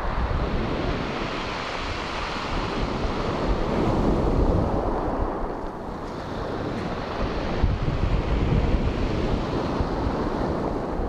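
Surf breaking on a steep shelving beach, the wash swelling and easing, with wind buffeting the microphone.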